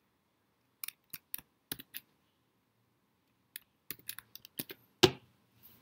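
Computer keyboard typing: a few keystrokes about a second in, a pause, then a quicker run of keys ending in one louder click just after five seconds.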